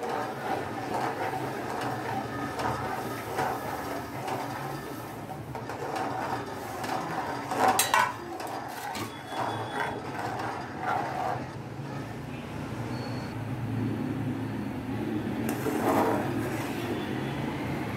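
Metal ladle stirring roasted semolina into boiling sugar syrup in an aluminium pan: a continuous scraping and stirring with light clinks, and a sharp knock of the ladle on the pan about eight seconds in.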